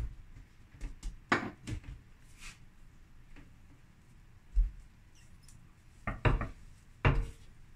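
Plastic rolling pin rolling over a log of bread dough on a worktop, with scattered soft knocks and clicks as the pin is set down, pushed and lifted.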